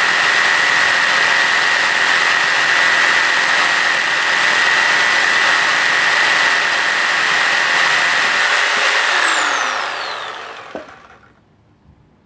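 Bosch reciprocating saw with a pruning blade cutting through a wooden log, running at steady full speed with a high whine. About nine seconds in, the trigger is let go and the motor winds down, falling in pitch until it stops, with a light knock just before it goes quiet.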